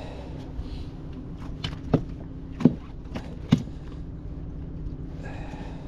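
A small bluefish being handled in a rubber landing net: about three sharp knocks and a few lighter taps over a steady low motor hum.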